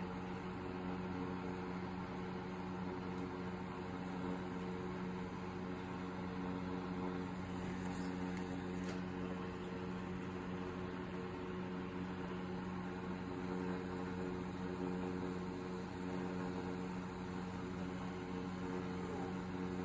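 Steady hum of an electric space heater's fan, a few even low tones over a soft rush of air.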